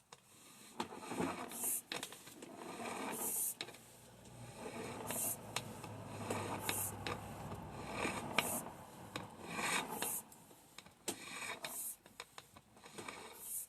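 Sewer inspection camera's push cable being fed along the line, with uneven rubbing and scraping and scattered sharp clicks.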